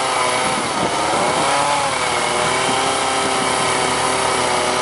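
Gas chainsaw running at high revs while carving wood. Its pitch dips briefly about a second in, then holds steady.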